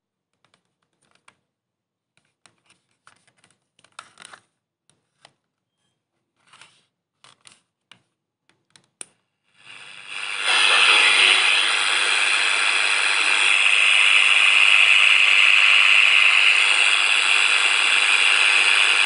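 Philips AE1595 pocket transistor radio handled with scattered small clicks and taps, then switched on about halfway through. Its speaker gives a loud, steady hiss of static, with no station tuned in.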